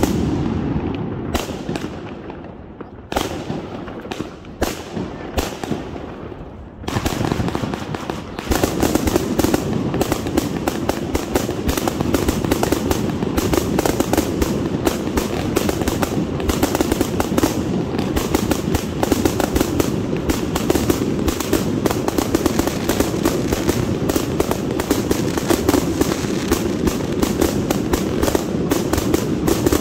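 Consumer aerial fireworks. For the first several seconds there are separate bangs of shells bursting. From about seven seconds in comes a dense, continuous rapid-fire barrage of launches and bursts that keeps going without a break.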